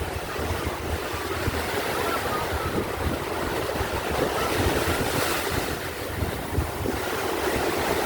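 Atlantic surf washing ashore in a steady wash, with gusts of wind buffeting the microphone.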